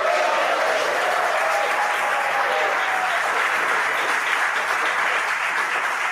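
A crowd cheering and applauding at the confirmation of side-booster separation, with a few whistles in the first few seconds. The noise of the crowd holds steady throughout.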